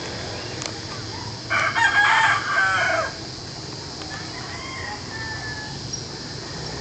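A rooster crowing once, a loud call of about a second and a half starting about a second and a half in, over a steady background hiss.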